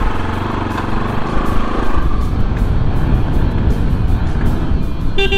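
A vehicle engine running close, a low rumble with rapid pulsing, under background music. A short ringing tone sounds near the end.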